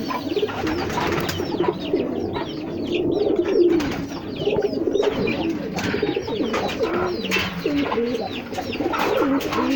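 A loft full of pigeons cooing, many birds overlapping, with high chirps mixed in.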